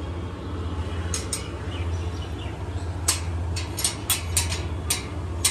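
Sliding bolt on a painted steel grille gate being drawn back by hand: a run of sharp metallic clicks and clanks starting about a second in, thickest in the second half, over a low steady hum.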